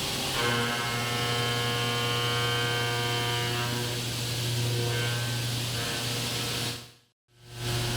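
CNC milling machine cutting a forged steel compressor blade: a steady low hum from the running spindle, with a set of steady whining tones from the cutter for the first few seconds. About seven seconds in the sound fades out briefly and returns.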